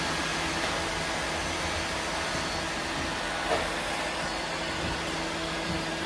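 Several robot vacuums running at once on a hardwood floor: a steady whirring hum of their motors and brushes, with one brief louder bump about three and a half seconds in.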